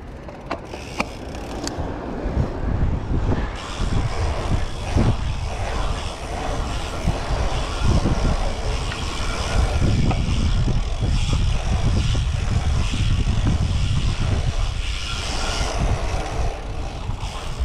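Wind buffeting the microphone of a moving bicycle, with a steady rumble of tyre and road noise. There are a few clicks in the first two seconds.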